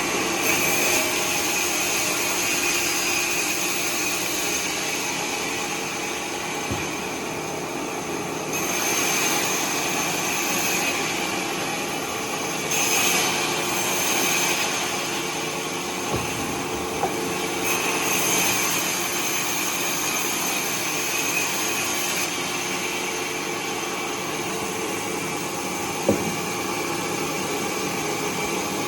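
Bandsaw running steadily while it saws through timber, its hiss swelling and easing over the cut. There are a few brief knocks, the sharpest near the end.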